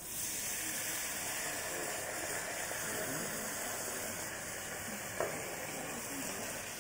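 Onion, celery and capsicum sizzling steadily in oil in a hot pan, stirred with a wooden spoon. A single light knock about five seconds in.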